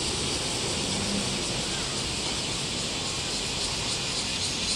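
Steady high-pitched hiss of a summer cicada chorus over a low background rumble.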